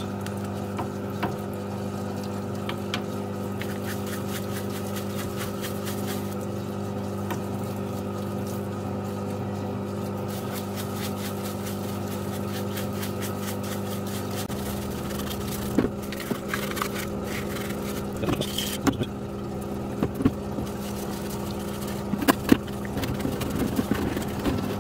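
Steady low machine hum with a few fixed tones, unchanging throughout. In the second half, short scrubbing and tapping sounds of a brush working grease off a metal part come through it.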